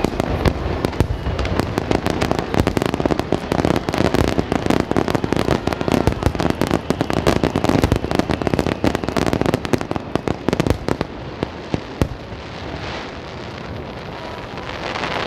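Fireworks going off in a dense, rapid barrage of bangs and crackles. The barrage thins out about eleven seconds in, with one lone sharp bang about a second later.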